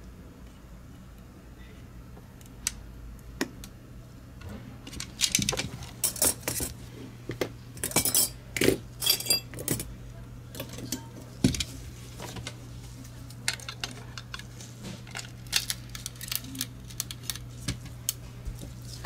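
Small plastic mouse-shell parts and tweezers clicking and clattering as a wireless gaming mouse is taken apart by hand, the clicks coming thickest in the middle of the stretch, over a steady low hum.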